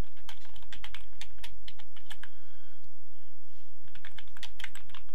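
Typing on a computer keyboard: quick runs of key clicks, easing off for about a second and a half midway, then picking up again near the end.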